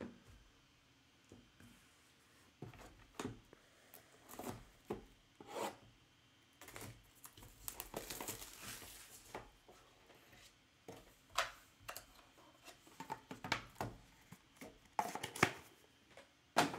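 Plastic shrink-wrap being torn and peeled off a sealed cardboard box of trading cards, crinkling as the box is handled. There is a longer stretch of tearing around the middle, and short rustles and taps either side.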